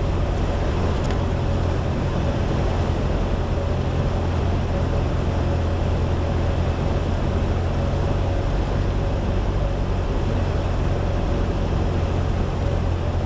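Steady cabin drone of a Piper Cherokee's single piston engine and propeller during climb-out after takeoff, with a thin steady tone running through it.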